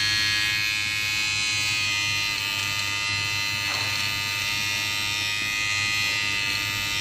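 Sonar HP-300 rechargeable trimmer running with a steady motor buzz while trimming a mustache.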